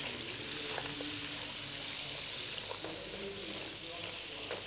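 Oil sizzling in a frying pan with crab claws, shallots and garlic in it: a steady hiss.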